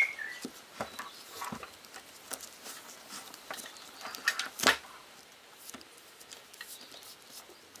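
Handling sounds of a pocket knife and its leather belt sheath: scattered light taps and rustles, with one sharper knock a little past halfway.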